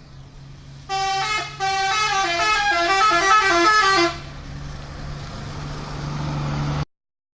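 A bus's telolet horn plays a quick multi-note tune: one note about a second in, a brief break, then rapidly changing notes for about two and a half seconds. A low engine hum runs underneath and grows louder after the horn stops, and the sound cuts off suddenly near the end.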